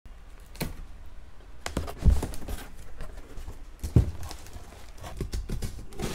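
Cardboard box being handled open: flaps and inner packing pushed and knocked about, a run of light clicks and scrapes with two dull thumps, about two seconds in and again about four seconds in.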